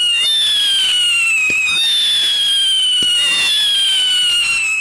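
Whistling fireworks: a loud, continuous shriek made of one whistle after another. Each whistle lasts about a second and a half and slides slightly down in pitch before the next starts higher, with a few faint pops underneath.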